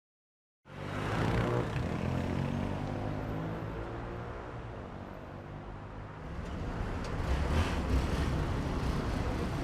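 Vehicle engine running with surrounding street traffic, cutting in abruptly just under a second in and growing somewhat louder near the end.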